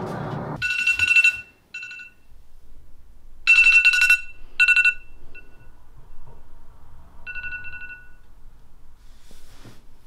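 Smartphone alarm going off in repeated short bright beeps in uneven groups, then falling silent near the end: an alarm labelled "Anti psychotics", the reminder to take antipsychotic medication.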